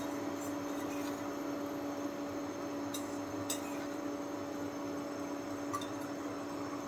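Steady electrical hum with a faint fan-like hiss, from the induction cooktop heating oil in an empty kadai, with a couple of faint ticks about three seconds in.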